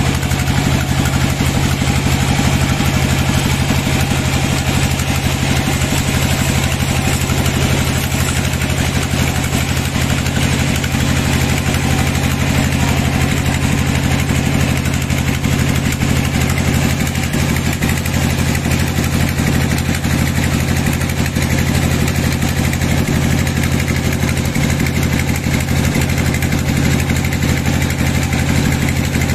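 Band sawmill running steadily with its blade turning but not cutting, a constant low machine hum.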